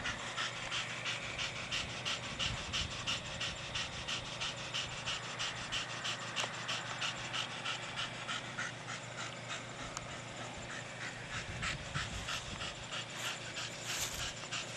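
Staffordshire Bull Terrier panting in a fast, steady rhythm, out of breath from hard play with a ball.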